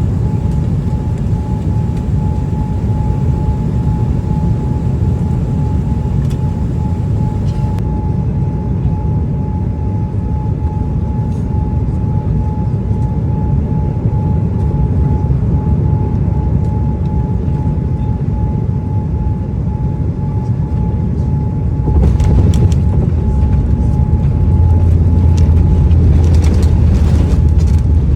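Jet airliner noise on a landing approach: a steady low rumble with a thin steady whine. About 22 s in come a few sharp knocks and the sound gets louder, then a heavy low rumble builds: the touchdown and rollout.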